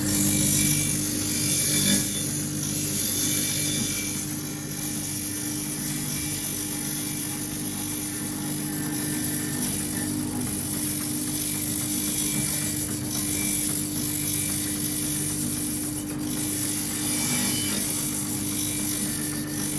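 A motor-driven sharpening machine running steadily: a constant hum with a strong high hiss over it.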